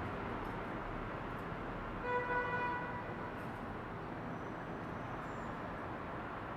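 A single horn-like toot: one steady pitched tone lasting just under a second, about two seconds in, over a steady background hiss.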